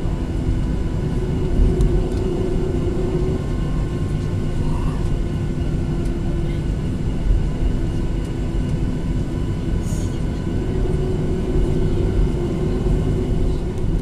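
Cabin noise inside a Boeing 737-800: a steady low rumble with a constant hum from its CFM56 engines running at low power, heard from a seat over the wing.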